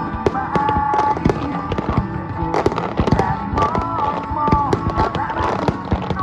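Fireworks shells bursting one after another in quick succession, with sharp cracks and booms. Beneath them music plays, a sustained melody carried over the display's loudspeakers.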